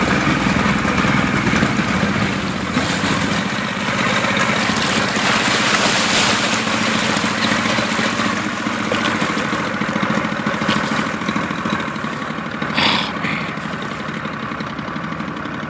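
Boat motor running steadily, with water rushing past; a brief sharper sound about thirteen seconds in.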